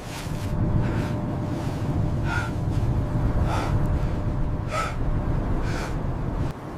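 Heavy gasping breaths, about one a second, over a steady low rumble of blizzard wind that drops away suddenly near the end.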